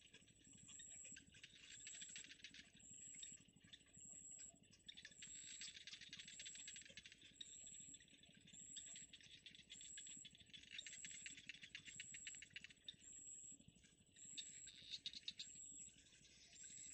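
Faint insect chorus: a dense, fast rattling buzz that swells and fades, with a short high chirp repeating regularly about once a second.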